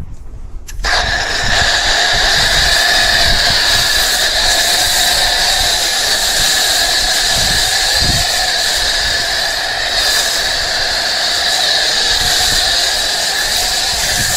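Steady hiss of compressed air, starting suddenly about a second in and holding even, with a faint whistle running through it.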